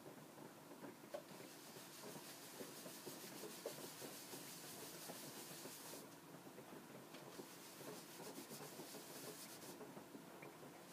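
Faint rubbing of a cloth rag working wax mastic into a thin sheet of madrona wood veneer on a board, a steady scratchy texture of small strokes.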